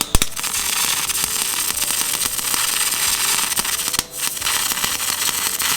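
MIG welder laying a bead on sheet-steel sill repair panels: a steady, dense crackle that stops briefly about four seconds in, then starts again.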